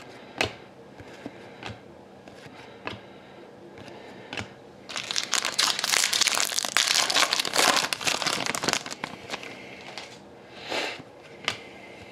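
Foil trading-card pack wrapper crinkling as it is opened and crumpled, in a dense stretch from about five to nine seconds in and again briefly near the end, with light clicks of cards being handled before it.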